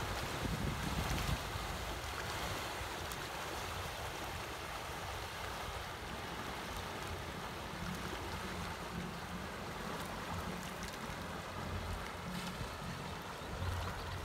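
Motor yacht cruising past: a low engine drone under wind on the microphone and small waves lapping.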